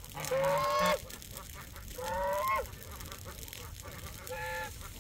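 A farm bird calling three times, each call about half a second long and rising slightly in pitch, about two seconds apart.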